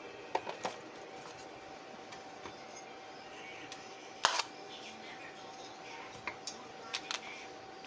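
Light clicks and taps from objects being handled, with one sharper click a little past four seconds in, over a faint steady hum.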